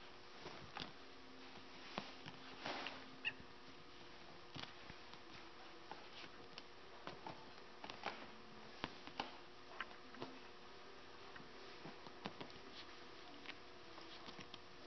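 Welsh Springer Spaniel puppies' paws and claws scrabbling against an upholstered footstool and a concrete floor: soft, scattered taps, scuffs and clicks, over a faint steady hum.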